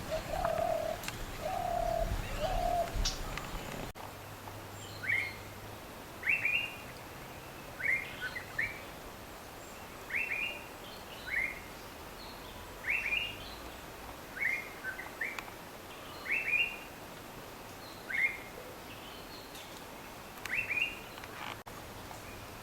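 Birds calling: first three low, held notes, then after a break a bird repeating short, sharply falling high call notes about once a second.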